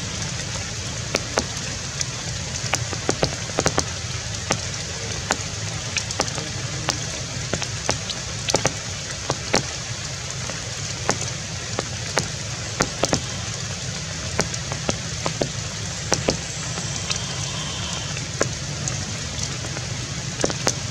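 Rain: an even hiss with irregular sharp ticks of drops landing close by, several a second.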